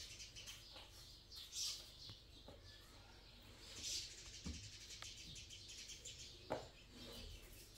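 Faint bird chirping in short scattered calls, with one sharper knock near the end.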